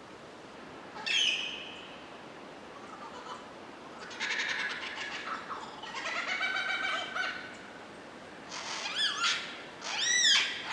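Lyrebird singing a varied run of calls: a single call about a second in, a fast rattling series around the middle, then a string of loud, repeated arching notes that drop in pitch near the end.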